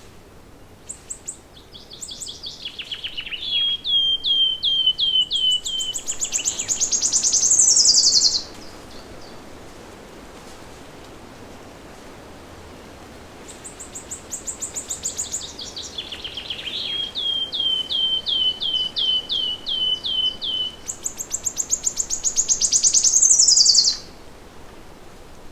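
A songbird singing the same song twice, with a pause of about five seconds between. Each song is a fast run of repeated chirping notes that leads into a very rapid, high trill ending in a falling slur.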